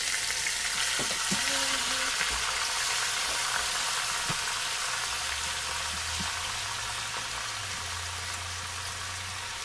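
Chunks of seasoned, still-frozen beef searing in hot olive oil in an Instant Pot on sauté: a steady, dense sizzle that eases slightly toward the end.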